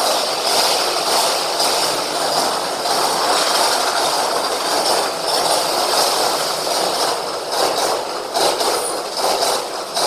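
Amtrak passenger train rolling past, a steady loud rush of wheels on the rails.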